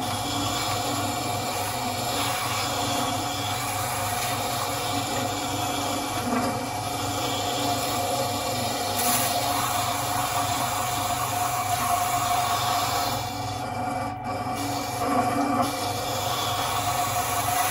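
Axminster Craft AC250WBS water-cooled wet-stone sharpener running steadily, its grinding stone turning towards the user, with the rub of a scissor blade, held flat in the scissor jig, being ground against the wet stone.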